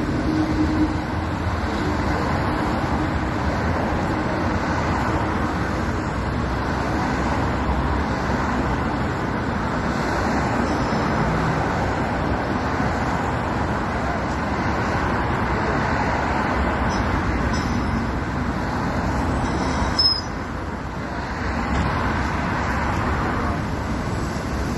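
Steady street traffic noise of buses and cars passing on a rain-wet road. A brief sharp sound comes about twenty seconds in, after which the noise is a little quieter.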